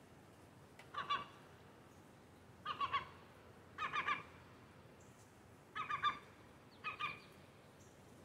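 Herring gulls giving harsh calls in five short bursts, each of two to four quick notes, a second or two apart. They are the aggressive calls of two gulls in a fight.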